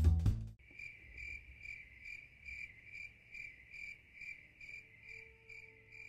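A music track cuts off about half a second in. A cricket then chirps steadily, one pitch, about two and a half chirps a second.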